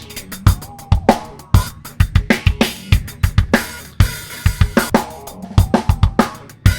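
Recorded live drum kit playing a steady groove of kick, snare, hi-hat and cymbals, played back through a clone of the Calrec PQ1549 EQ with one band boosted to bring out the drum's higher-pitched note.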